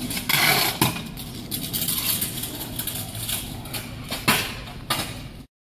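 Stunt scooter wheels rolling on concrete, with three sharp clacks of the scooter striking the ground: one about a second in, two near the end.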